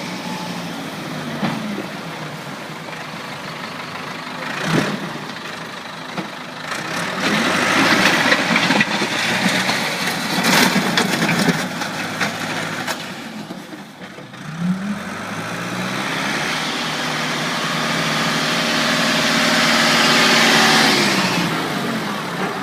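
Ford New Holland 555D backhoe's diesel engine running and changing speed, revving up about two thirds of the way in, with a few sharp knocks.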